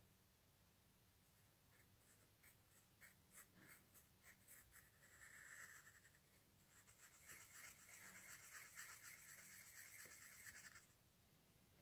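Faint scratching of a pen on paper: scattered short strokes, then a steady run of back-and-forth shading strokes from about seven seconds in that stops shortly before the end.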